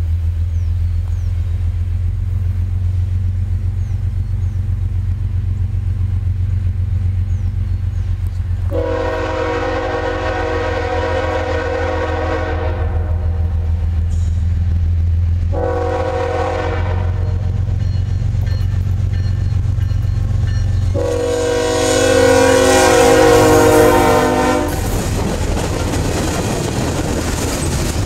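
CSX freight locomotive's air horn sounding a long blast, a short one, then a louder long one as the train approaches, over a steady low rumble. Near the end the train reaches the microphone and passes close by with loud rolling wheel-on-rail noise.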